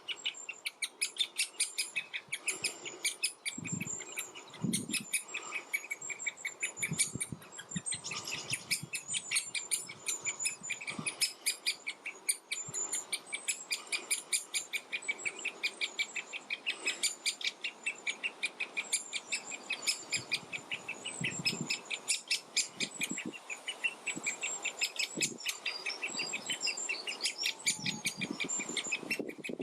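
Great spotted woodpecker juvenile calling from the nest hole: a continuous rapid chatter of short, high calls, several a second, with other woodland birds singing.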